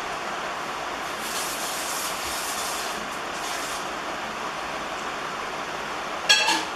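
Steady background noise with a high hiss from about one to four seconds in, then a single short, loud squeak near the end.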